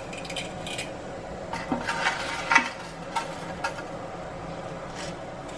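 Dry pasta being handled and dropped into a pot of boiling water: scattered light clicks and rustles, the louder ones about two seconds in, over a faint steady hum.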